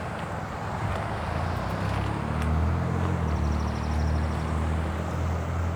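Steady low hum of an engine running, growing a little louder about two seconds in, over outdoor background noise.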